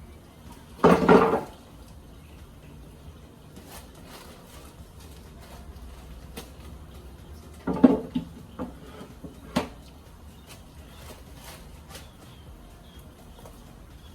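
Metal clanks and knocks from engine parts and tools being handled: one loud clank about a second in, another cluster of clanks and sharp clicks a little past halfway, and faint ticks in between.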